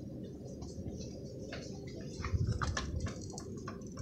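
Fishing rods clicking and knocking lightly against a wooden display rack as they are handled. A dull, louder thud comes a little over two seconds in.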